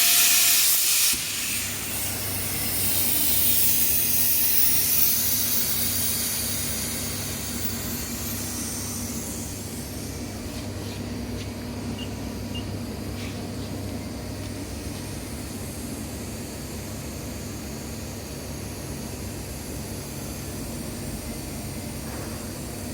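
Max 200 plasma arc cutting with a loud hiss that cuts off about a second in. A softer air hiss then fades away over several seconds over a steady low hum from the CNC plasma table.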